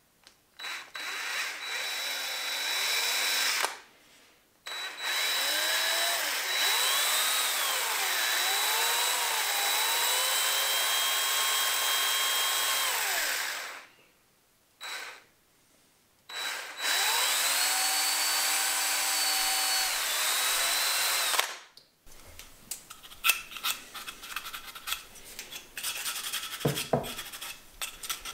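Cordless drill drilling into an oak block in three long runs, its motor pitch rising and falling as the trigger is squeezed and eased. After it stops, light scratching and rubbing as the piece is worked by hand.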